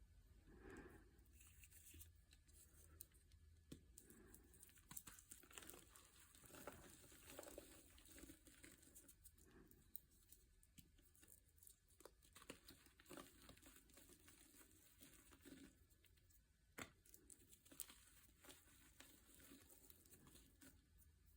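Very faint, irregular crinkling and rustling with scattered small clicks and taps, like something being handled close to the microphone.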